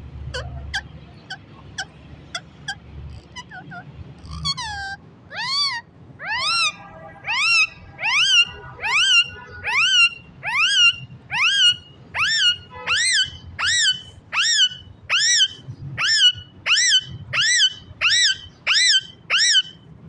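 Rose-ringed (Indian ringneck) parakeet calling over and over, about one and a half calls a second, each call sweeping steeply up in pitch and easing off, growing louder. Before the calls start, a few seconds of short sharp ticks.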